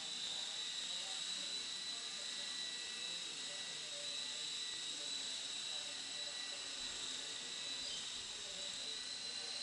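Small electric RC helicopter (Walkera Dragonfly 5#10) in flight: a steady high-pitched whine from its motor and rotor that holds its pitch throughout.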